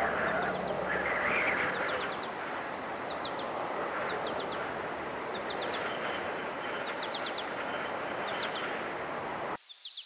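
Outdoor evening ambience: a steady rushing background with crickets chirping in quick groups of three to five short notes, repeating about once a second. The music fades out in the first two seconds, and the rushing background cuts off suddenly near the end, leaving the chirps.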